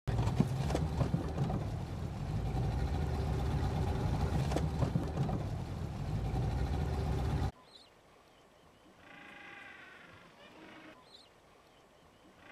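A boat's outboard motor running steadily, which cuts off suddenly about seven and a half seconds in. After that there are only a few faint pitched calls.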